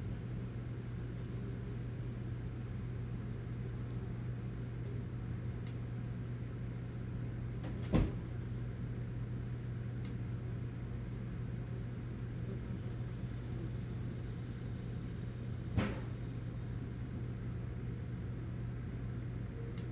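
Steady low background rumble with two sharp clicks about eight seconds apart.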